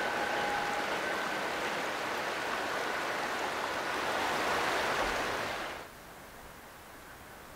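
Steady rushing of a flowing river, with two faint steady whistling tones near the start that fade out within the first few seconds. The rushing cuts off abruptly about six seconds in, leaving a much quieter hiss.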